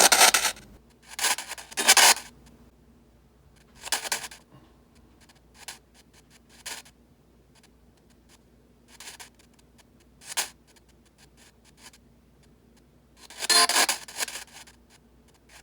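Spirit box sweep radio playing through an adjustable noise-control unit: short bursts of scratchy radio noise and fragments, with near-quiet gaps between them.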